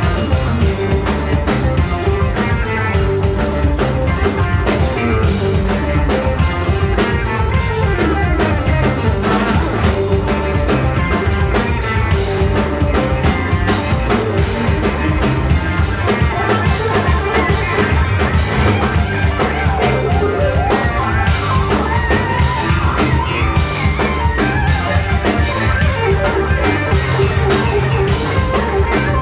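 Rock band playing live, with drum kit and guitar, loud and steady without a break.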